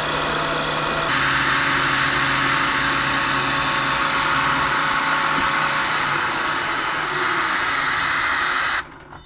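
Vertical milling machine running, its cutter machining a 6061 aluminium plate with a steady cutting noise; the noise gets brighter about a second in and cuts off suddenly near the end.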